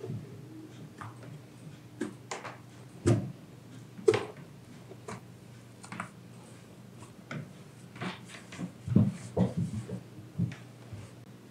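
Hands kneading a soft yeast dough: irregular squishes, slaps and dull thumps, with a few heavier thumps in the middle and again near the end.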